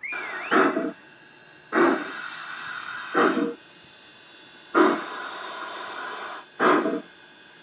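Model Blue Comet steam locomotive chuffing slowly: five uneven chuffs, each about a third of a second, with a steady hiss between most of them. A short squeal comes right at the start.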